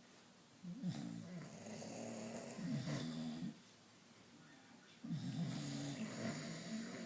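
Snoring: two long snores, the first starting about a second in and lasting close to three seconds, the second starting about five seconds in.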